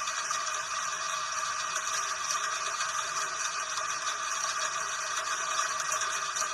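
Steady rain, an even hiss with faint fine ticks of drops.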